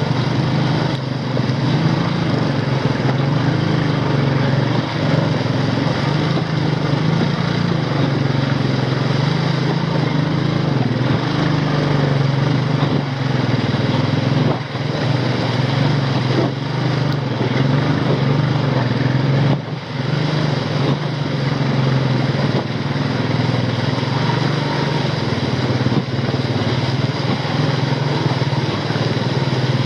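Royal Enfield 350's single-cylinder engine labouring steadily in first gear as the motorcycle crawls over a flooded, rocky road.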